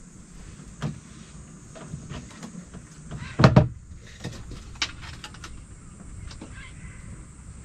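Scattered light knocks and clicks on a small boat, with one louder thump about three and a half seconds in.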